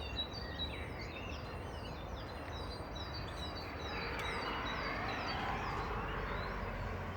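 Small birds chirping: a quick run of short, high, falling chirps, then a louder, denser chatter from about four seconds in, over a steady low background rumble.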